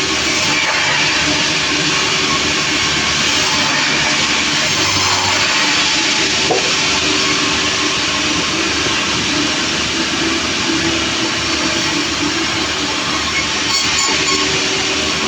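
Sawmill running steadily as its saw cuts through a log: a loud continuous machine noise with a low steady hum underneath.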